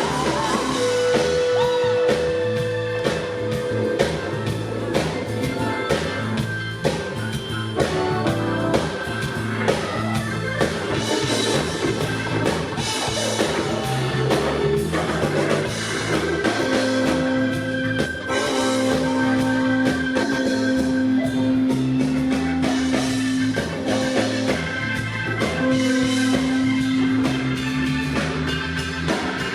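Live blues-rock band playing an instrumental passage with drum kit and electric guitar, with long held notes over a steady beat.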